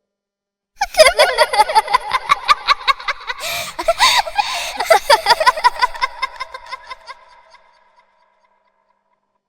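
Children laughing: rapid, high-pitched giggling in quick bursts that starts about a second in and fades out around seven seconds later.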